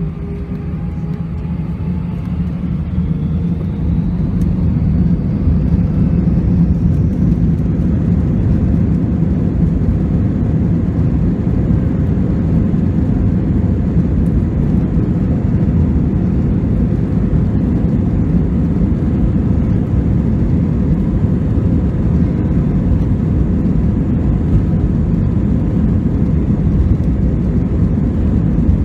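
Airbus A320's IAE V2500 jet engines spooling up with a rising whine over the first several seconds, then a steady loud roar and rumble, typical of the application of takeoff thrust and the takeoff roll.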